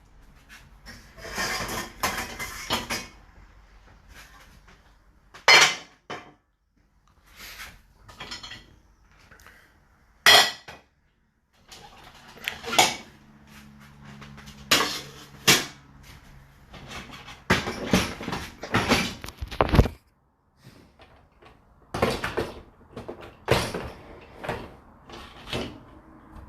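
Dishes, glasses and cutlery clinking and knocking as they are taken out of a dishwasher and put away, with cupboard doors or drawers opening and closing; a string of separate clatters with short pauses between.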